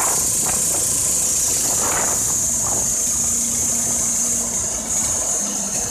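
Wood-Mizer LT15 bandsaw mill running on its 15-hp Kohler Pro-15 petrol engine, the band blade sawing through a large pine log. The engine runs steadily under load beneath a steady high hiss from the cut.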